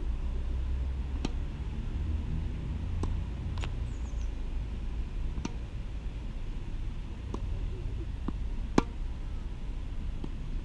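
Tennis ball bouncing on a hard court and being struck by a racket: about eight sharp knocks, some in quick bounce-then-hit pairs, the loudest near the end. A low steady rumble runs underneath.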